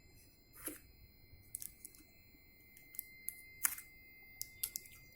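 Scattered small clicks and crinkles of a smartphone's cardboard box being handled and prised open, two of them louder, about a second in and near the end.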